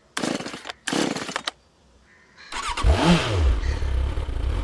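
Two short harsh noisy bursts, then about two and a half seconds in a motorbike engine starts. Its pitch dips, then it settles into a steady low running hum.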